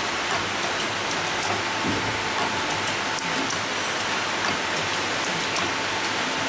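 Paper baking-cup forming machine running: a steady dense mechanical clatter and hiss with fine rapid ticking and a faint steady whine.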